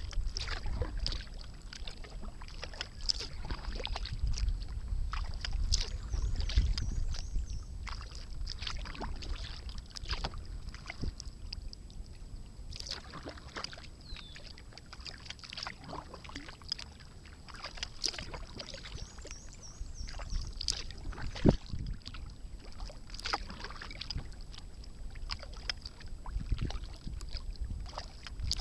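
Kayak paddle strokes on calm water: irregular splashes and drips as the blades dip and lift, with one sharper splash about three-quarters of the way through.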